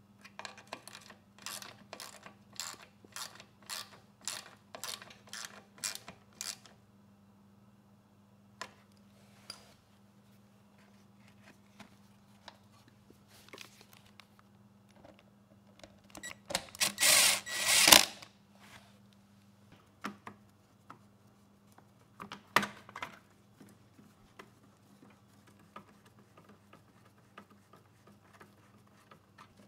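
Socket ratchet clicking in a run of short strokes for about six seconds, tightening a bolt on a lawn mower's engine. Later come a louder clatter of plastic parts and a few sharp knocks as the air filter housing is fitted back on.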